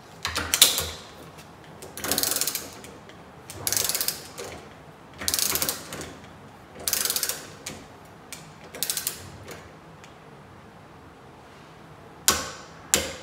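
Hand ratchet clicking in about six strokes, roughly a second and a half apart, as it runs a nylock nut down onto a fan hub. Near the end a click-type torque wrench, set to 15 foot-pounds, gives two sharp clicks, the sign that the nut has reached its set torque.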